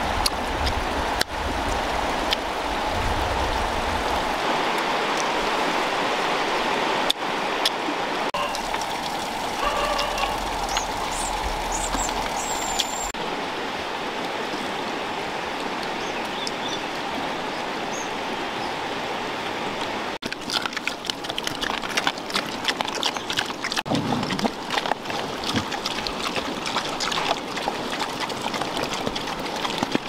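Steady rush of a flowing river. From about two-thirds of the way in, many quick irregular clicks and smacks of dogs and pigs eating rice and fish from baskets join it.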